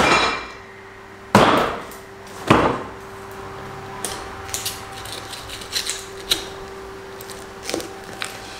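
A large beef rib section thumps heavily onto a plastic cutting table three times, then a butcher's knife cuts between the ribs with a run of small crackling clicks. A steady hum runs underneath.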